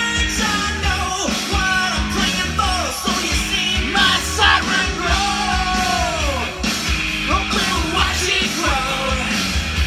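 Rock song with a loud sung vocal over guitars, bass and drums, playing from a vinyl record on a turntable.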